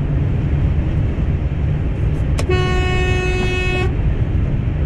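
A vehicle horn sounds one steady blast of about a second and a half, about halfway through. It sits over the steady engine and road rumble inside a moving truck cab.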